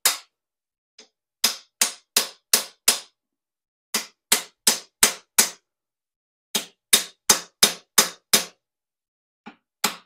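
Ball-peen hammer striking the main bearing caps of a Ford 200 cubic inch inline-six block: sharp metal-on-metal blows in runs of five or six, about three a second, with short pauses between runs. The caps are being driven down into their register grooves in the block to seat them, and the tone of the blows changes once a cap is tight.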